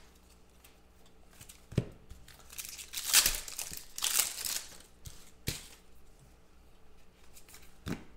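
Foil trading-card pack being torn open and crinkled by hand, in two rustling spells about three and four seconds in. A few short knocks fall between them.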